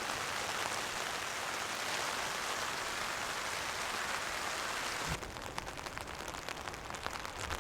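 Heavy rain falling in a steady, dense hiss. About five seconds in, the sound changes abruptly to lighter rain with separate drops pattering.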